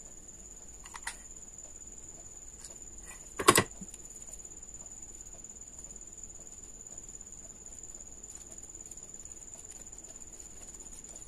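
Faint hand-crafting sounds of a glitter-paper diya and a hot glue gun being handled: a few light clicks, then one sharp knock about three and a half seconds in. A steady high-pitched whine runs underneath.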